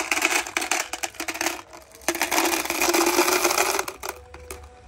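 Buttons pouring out of a plastic bag into a clear plastic jar, a dense rattling clatter. It comes in two pours with a short break about two seconds in, and dies away near the end.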